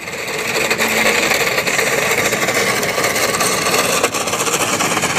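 Loud, steady rushing and scratchy crackling noise of a moving car, picked up by a handheld phone recording from inside the car.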